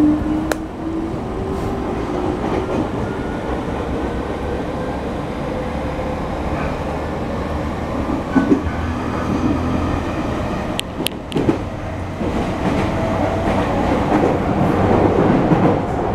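Inside a Sotetsu 10000 series electric train under way: the Mitsubishi IGBT-VVVF inverter motor whine rises slowly in pitch as the train accelerates, over the steady rumble of wheels on rail. A few sharp clicks come about eleven seconds in.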